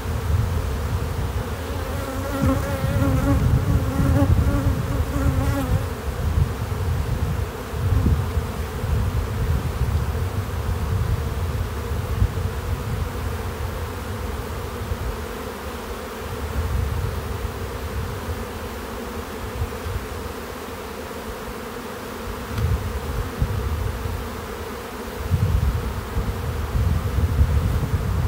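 Honeybees humming steadily around an opened hive whose frames are being worked, with a louder pitched buzz for a few seconds early on. A low rumble rises and falls underneath.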